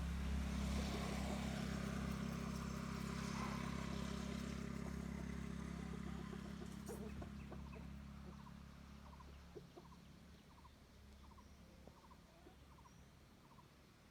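A heavy vehicle's engine runs with a steady low hum that fades gradually over about ten seconds, likely as the machine moves off. Once it has faded, short repeated bird calls are heard.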